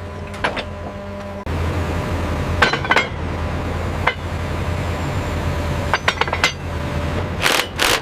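Scattered metal clinks and knocks from rail track work over a steady machine hum. The hum gets louder about one and a half seconds in, and there are a few louder, rougher bursts near the end.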